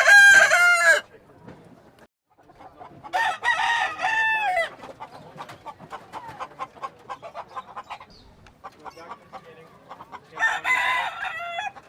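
Rooster crowing three times: once at the start, again about three seconds in, and again near the end, with quick soft clucks in between.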